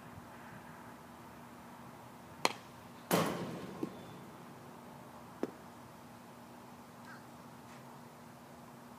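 A baseball bat hitting a pitched ball once, a sharp crack about three seconds in with a short ring after it. There are a few fainter knocks around it, one just before and two after.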